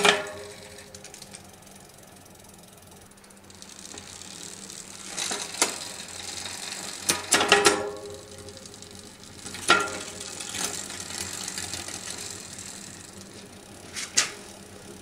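Bicycle drivetrain turned by hand on a work stand: the chain runs over the chainring, cassette and derailleur, with sharp clicks as gears are shifted, several times in the middle of the stretch and once near the end.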